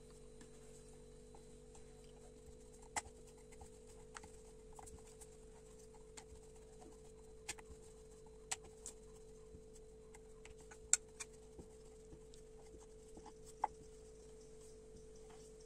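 Wooden rolling pin rolling out dough on a stone board, faint, with scattered sharp clicks and knocks as the pin meets the board; a faint steady hum underneath.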